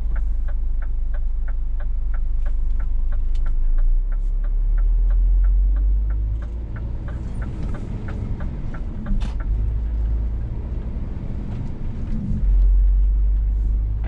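Inside a Scania S500 truck's cab: steady low engine and road rumble, with the turn-signal indicator ticking regularly for about the first nine seconds as the truck slows and turns. The engine note dips and shifts in pitch in the middle, then the low drone swells again near the end.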